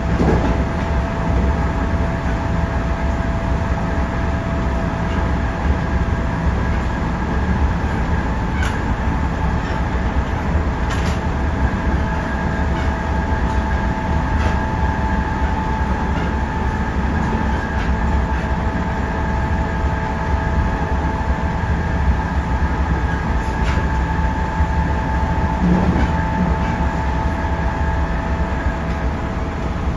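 JR Central 311 series electric multiple unit running at steady speed, heard from inside the car. A constant low rumble carries several steady whining tones, with a few faint rail-joint clicks scattered through.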